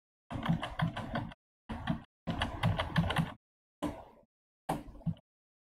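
Computer keyboard keys struck in quick runs of clicks as Ctrl+Z is pressed over and over, in five short bursts with silent gaps between them.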